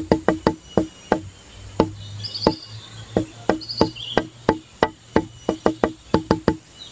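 Background music: a quick knocking percussion beat like a wood block, about five or six knocks a second. It thins to single, spaced knocks for a few seconds in the middle, then returns to the quick pattern.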